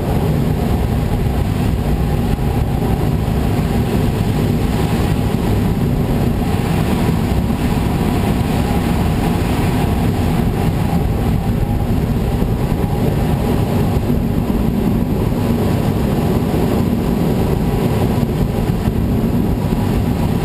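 Steady rush of airflow over a glider in flight, heard from inside the cockpit, with no engine.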